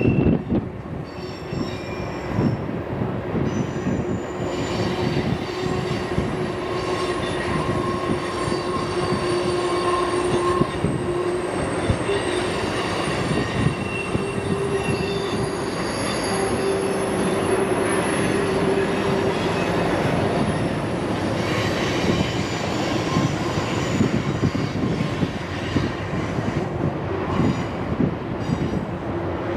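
A Canadian Pacific freight train of tank cars rolls around a curve, with the rumble and clatter of its steel wheels on the rails. Over this, the wheel flanges squeal against the curved rail in several shrill tones that come and go and shift in pitch.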